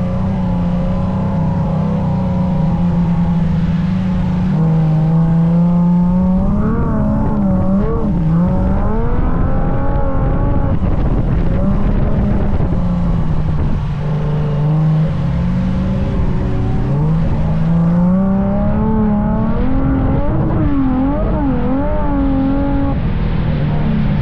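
Nissan Patrol Safari engine working hard in sand: revs held high, stepping down and climbing again, with quick rises and falls of the throttle about a third of the way in and again near the end.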